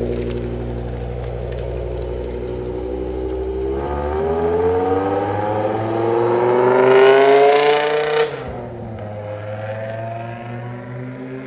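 BMW E60 M5's V10 engine running steadily, then climbing in pitch over about four seconds before dropping off suddenly and settling back to a steady run.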